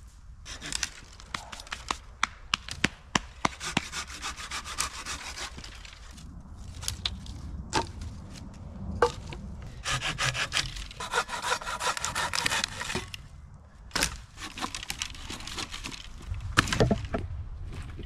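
Hand saw cutting a dry dead branch for firewood in two bouts of quick back-and-forth strokes, with sharp cracks and knocks of wood in between.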